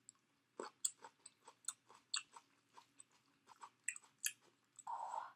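Close-miked chewing of crunchy vinegar-stir-fried napa cabbage, with many small wet mouth clicks and crunches. A short breathy rush comes near the end.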